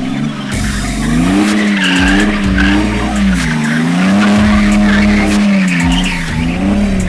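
BMW 330d three-litre straight-six turbodiesel in a VW Amarok bakkie, revved hard, with the revs rising and falling again and again as the truck drifts. The tyres squeal and scrub on the concrete throughout.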